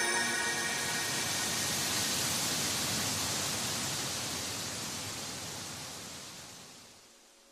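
A steady hiss-like wash of noise that slowly fades to silence near the end, as the last notes of the background music die away just after the start.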